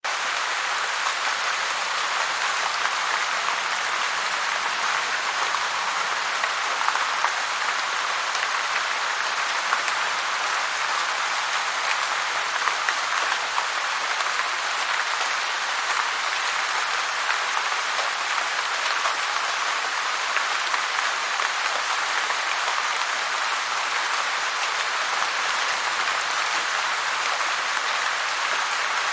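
Heavy rain falling steadily, a dense even hiss of countless drops with fine crackling ticks.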